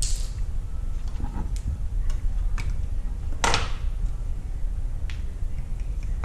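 Light clicks and one short scrape as the cap of a small glass sesame oil bottle is handled and twisted, over a steady low rumble.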